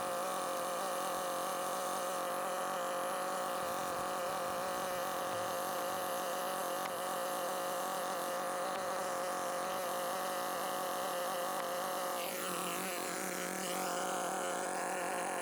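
Husqvarna 572XP chainsaw with a 70 cm bar running steadily under load, ripping lengthwise through a chinaberry log to mill slabs. Its steady drone dips briefly in pitch and recovers near the end.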